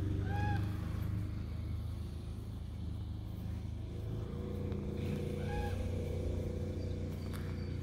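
A steady, low engine hum, like a motor vehicle idling. Two short, arched high calls come about five seconds apart.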